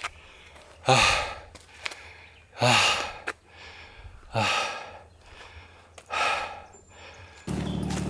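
A person breathing hard from climbing a steep hill under a heavy pack: four heavy, sighing exhales, each a breathy 'haa' that drops in pitch, coming roughly every second and a half to two seconds. A steady pitched sound starts just before the end.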